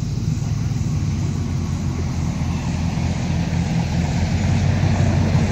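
Cadillac Escalade's V8 engine running as the SUV drives slowly over a muddy dirt track toward the listener, a steady low hum that grows a little louder near the end as it comes close.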